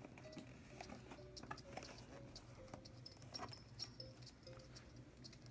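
Faint handling of a cardboard toy box: small scattered clicks and taps as fingers work at the packaging, with a few short faint squeaks, over a low steady hum.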